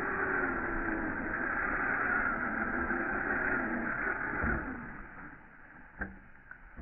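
Traxxas TRX-4 RC crawler's electric motor and geared drivetrain whining through snow, the pitch rising and falling with the throttle. The sound fades out after about four and a half seconds, and a couple of sharp clicks follow near the end.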